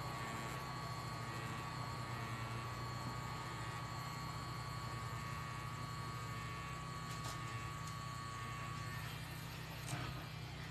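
Pen-style tattoo machine running with a steady hum and buzz while it lines a tattoo on skin. The buzz fades out shortly before the end, followed by a sharp click.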